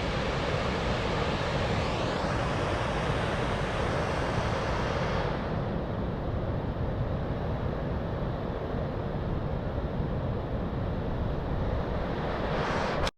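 Running Eagle Falls waterfall pouring, a steady rush of falling water. The higher hiss falls away about five seconds in, and the sound cuts off abruptly right at the end.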